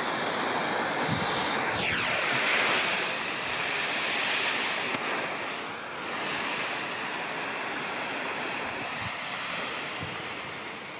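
Smoke bomb burning with a steady hiss that gradually dies down.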